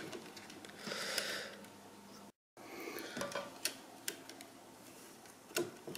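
Faint handling sounds: scattered small clicks and a soft rustle as a copper-coated steel welding-wire spool is fitted onto the plastic spool holder of a MIG welder's wire feed.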